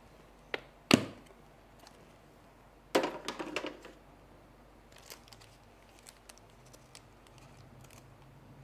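Clip-lock plastic food container being opened. A sharp plastic snap about a second in as a lid latch is released, then a short crackling clatter around three seconds as the lid comes off. Faint rustles and ticks follow as butter paper is peeled back from the frozen ice cream.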